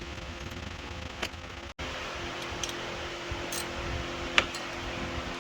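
Steady hum of a running fan, with a few sharp clicks over it, the loudest about four seconds in.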